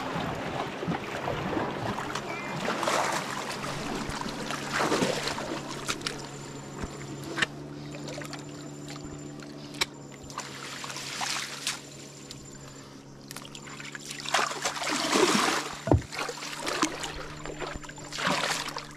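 Water splashing and sloshing in bursts as someone wades and works a net trap in shallow, muddy river water. Under it runs the steady low hum of an idling boat engine.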